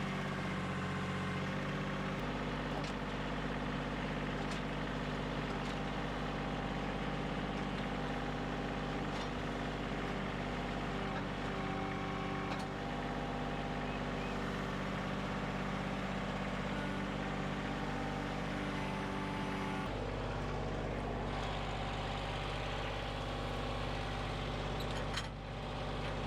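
Kioti CK2610 compact tractor's three-cylinder diesel engine running steadily while it loads a log onto the sawmill. The engine note changes about two seconds in and again about twenty seconds in. Near the end the sound dips and there are a few sharp knocks.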